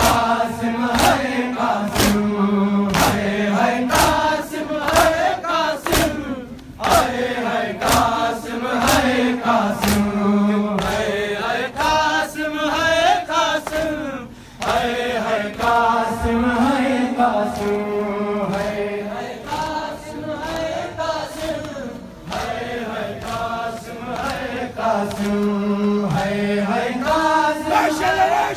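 A crowd of men chanting a noha together, with sharp rhythmic slaps of hands on chests (matam) about once a second, most regular during the first ten seconds.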